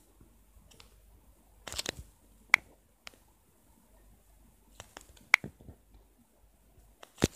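Scattered short, sharp clicks and taps: a quick cluster about two seconds in, single crisp ticks a little later and again around five seconds, and a louder double click near the end, over a faint low hum.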